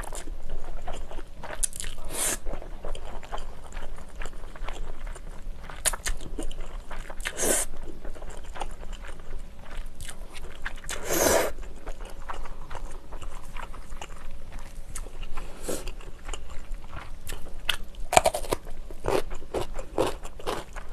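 Close-up eating sounds of spicy instant ramen noodles: wet slurping and chewing, with a few louder slurps spaced several seconds apart among many small mouth clicks.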